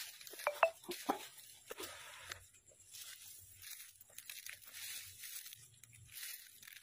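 Dry, cut oil palm fronds and grass rustling and crunching underfoot in soft, irregular crackles.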